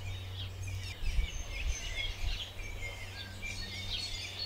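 Several small songbirds chirping and trilling, over a steady low rumble with a few soft thumps about a second in.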